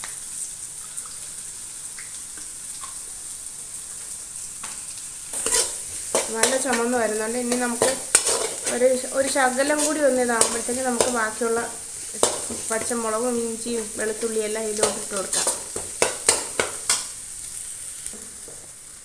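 Chopped onions and curry leaves sizzling in a stainless steel pan while a steel spoon stirs and scrapes against the metal, with many sharp clicks. The scraping is loudest from about five seconds in until about seventeen seconds, and a wavering pitched sound is heard over that same stretch.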